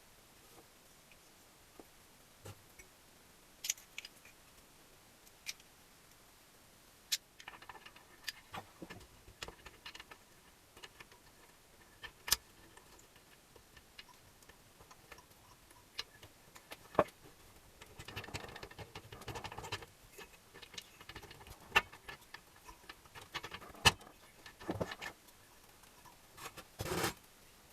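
Scattered sharp clicks and metallic taps of tools and small engine parts being handled during engine assembly, with a short stretch of rattling about two-thirds of the way through.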